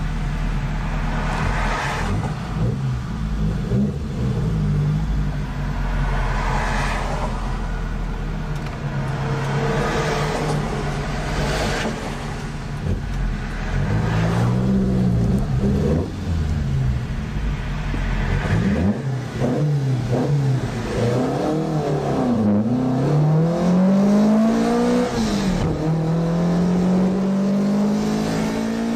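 Alfa Romeo twin-cam four-cylinder engine accelerating hard through the gears, heard from inside the car. The revs climb and fall back at each upshift, with several shifts in the second half. A low road and wind rumble sits under the engine in the first two-thirds.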